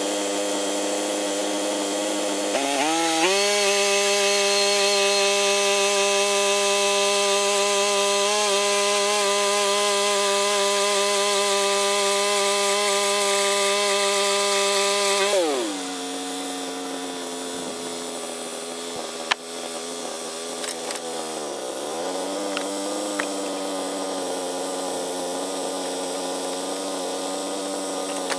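Norwood MX34 portable bandsaw mill's gasoline engine revving up about three seconds in and running steadily at full speed as the blade saws a 3-inch slab through a log, then dropping back to a lower idle about halfway through.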